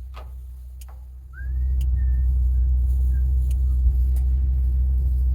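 A motor vehicle's engine running with a steady low rumble that gets louder about a second and a half in. A few sharp clicks and a short squeak are heard over it.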